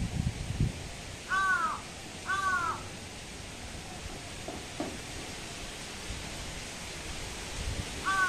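A bird calling: two short calls about a second apart a little over a second in, and one more near the end.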